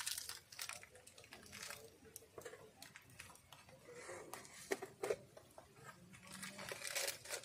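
Wood fire crackling in the stove under an iron wok of simmering tea, with irregular sharp pops and clicks.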